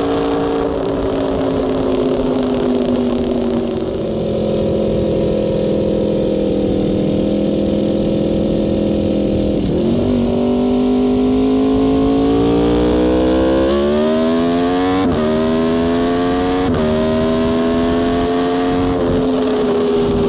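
Aprilia Tuono V4 R's V4 engine under way at highway speed, holding a steady pitch, then revving up through the gears in the second half with quick upshifts about 15 and 17 seconds in, the pitch dropping sharply at each shift before levelling off.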